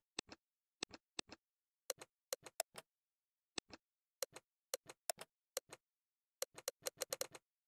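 Phone on-screen keyboard key-press clicks as text is deleted and typed: a series of short, sharp clicks at an uneven pace, often in quick pairs, with a fast run of them near the end.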